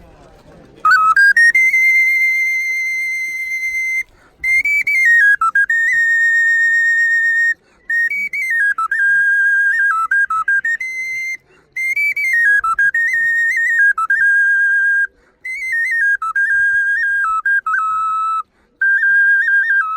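A handmade replica of a pre-Hispanic xoloitzcuintle (Aztec dog) wind instrument being blown. It gives one loud, high whistling tone in six phrases with short breaks, held notes that swoop up and down in pitch with a slight waver.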